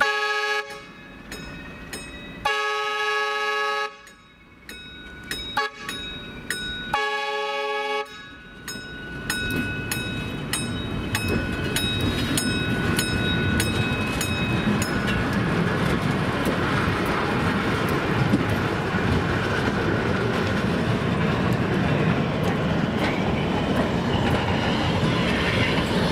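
A train's air horn sounds three blasts, the middle one longest, over a grade-crossing bell ringing steadily. From about nine seconds in, the wheels and cars of the train rumble steadily as they roll across the crossing.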